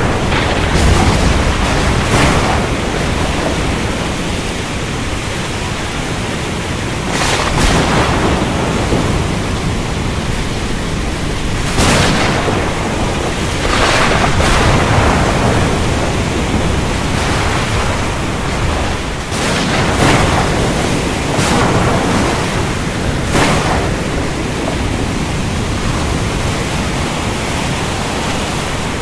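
Thunderstorm over the open sea: a steady wash of heavy rain and sea noise under a low rumble, broken by sharp thunder cracks every few seconds.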